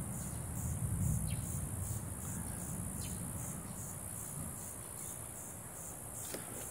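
Evening insect chorus: a steady, high-pitched pulsing trill. Under it, a low rumble fades away over the first couple of seconds.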